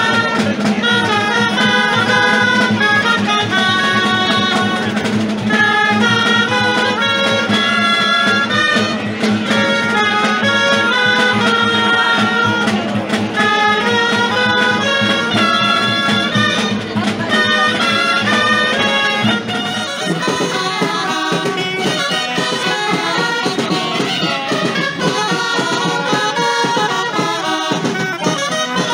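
Traditional folk dance music from wind instruments over a steady low drone, played for dancing giants. About two-thirds of the way through it changes to a street ensemble of violins, clarinet and drum.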